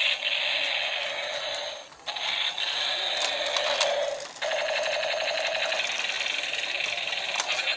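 Battery-operated toy tank running, its small gear motor whirring and rattling together with its built-in electronic sound effects. The sound cuts out briefly twice, about two seconds in and again just past four seconds.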